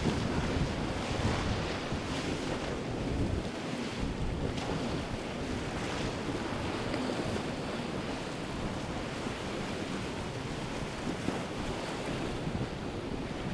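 Wind buffeting the microphone over the steady wash of waves, with a large motor yacht's hull and bow wake hissing through the choppy water as it passes.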